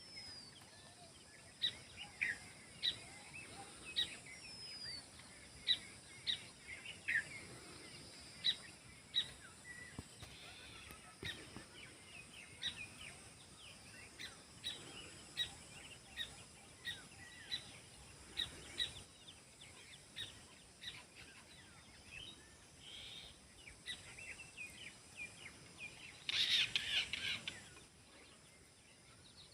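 Many small birds chirping, with short sharp repeated calls over a steady background hiss and a brief louder burst of dense chirping near the end.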